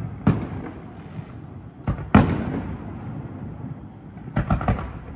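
Professional aerial firework shells bursting overhead: two big booms, about a third of a second in and about two seconds in, each trailing off in an echoing rumble, then a quick cluster of smaller pops near the end.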